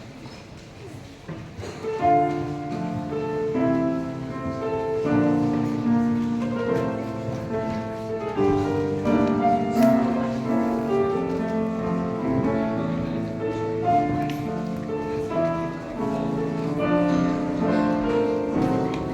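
Solo piano playing, quiet for about the first two seconds, then fuller and louder with quick runs of overlapping notes.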